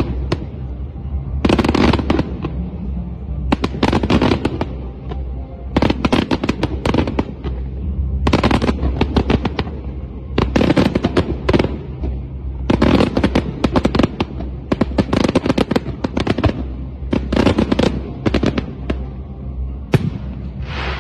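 Fireworks display: groups of rapid pops and bangs, each group lasting about a second, coming roughly every two seconds.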